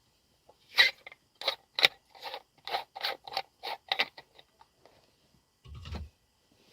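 A spoon scraping inside a container while coffee is being prepared: a run of scraping strokes, about two to three a second, then a short low thump near the end.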